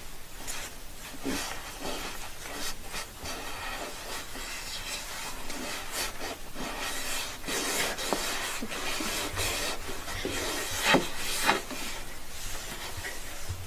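Fingers scratching and rubbing on the bare soles of a woman's feet as they are tickled: an irregular rasping of skin on skin, with two sharper, louder sounds about eleven seconds in.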